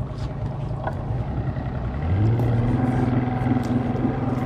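An engine running at a low, steady idle, picking up in pitch and getting louder about two seconds in, then holding steady.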